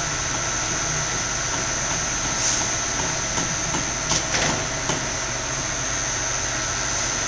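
Clausing Metosa engine lathe running steadily under power, with a continuous high whine. A few light clicks about four seconds in.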